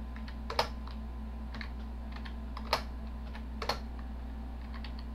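Computer keyboard keys pressed one at a time: a few separate sharp clicks about a second apart, over a steady low hum.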